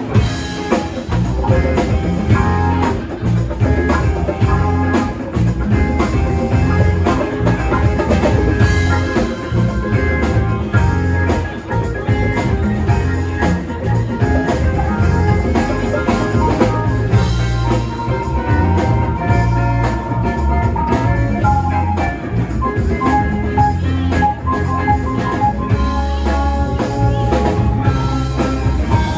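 Live rock band playing an instrumental passage, with drum kit and guitar.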